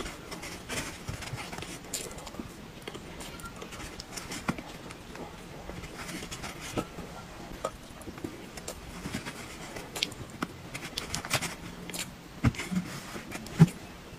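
Eating sounds: scattered soft mouth smacks and small clicks of a metal spoon against a foam takeout box while a cream-and-chocolate dessert is eaten and fingers are licked, with one sharper short sound near the end.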